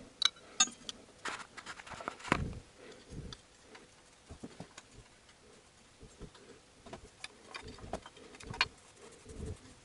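Scattered light metallic clicks and knocks, irregularly spaced, as a steel exhaust-downpipe bracket and its bolt are handled and threaded on by hand.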